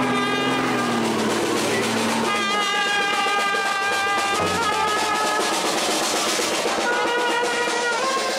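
Marching band playing: a snare drum rolling and a bass drum beating under a melody of long held notes that change pitch every two seconds or so.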